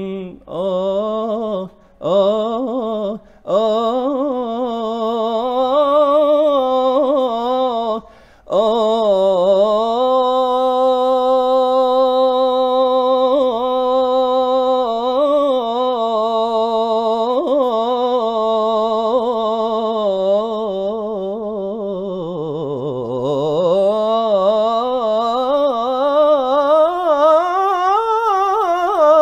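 A solo voice chanting a naat in a long, drawn-out melismatic passage with no clear words, the pitch winding and ornamented. It holds one long steady note about ten seconds in, and later sinks low before climbing back up.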